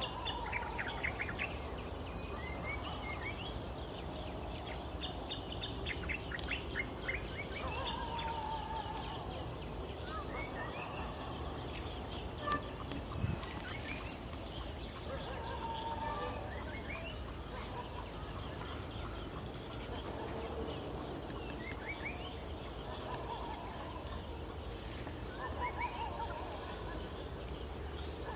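Outdoor natural ambience of insects and birds. An insect chirrs high in repeated bursts of a second or two, and birds call in quick runs of notes and short falling calls over a steady low background noise. A brief knock comes about halfway through.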